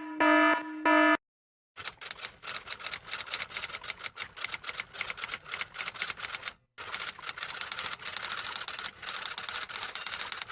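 Typewriter sound effect: rapid, uneven clatter of keystrokes with a short break about midway. It is preceded by a brief pitched beeping that stops about a second in.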